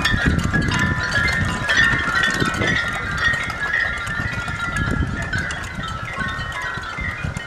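Hundreds of wine bottles hung as wind chimes, jostled by the wind and clinking against each other in a continuous, dense scatter of glassy ringing notes, with a low rumble of wind underneath.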